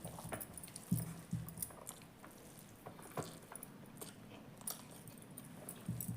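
Someone chewing food, with scattered small clicks and taps of eating, a few more distinct about a second in and again near three seconds.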